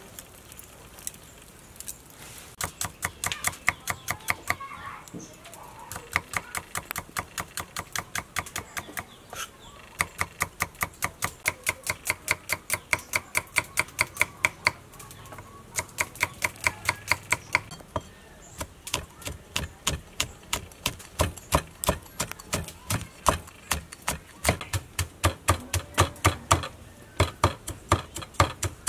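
Cleaver chopping fast on a wooden chopping block, about five strokes a second, in runs broken by short pauses, mincing shallots and red chilies.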